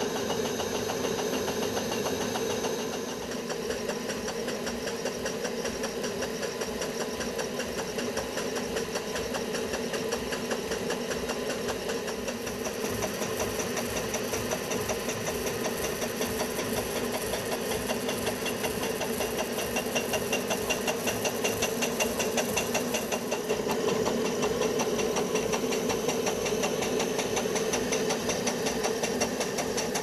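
PM Research 6CI model horizontal steam engine running steadily on steam from a copper vertical fire-tube boiler, with rapid, even exhaust beats. It gets a little louder about two-thirds of the way through.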